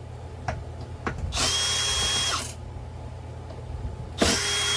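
Cordless electric screwdriver with a T20 Torx bit whirring in short runs of about a second each, backing screws out of a Onewheel Pint X's fender. One run in the middle, another starting near the end, with light clicks between.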